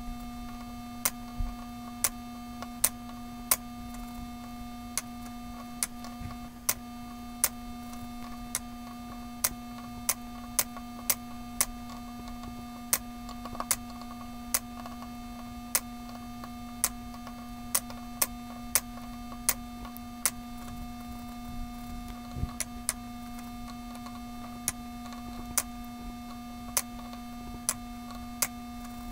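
Solenoid of a homemade desoldering vacuum clicking about once or twice a second, each stroke working a volleyball pump that draws air and molten solder up through the desoldering iron, over a steady electrical hum.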